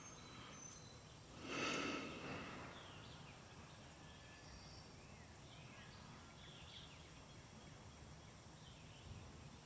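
Faint outdoor ambience: a steady high insect buzz with scattered faint bird chirps, and a brief soft noise about a second and a half in.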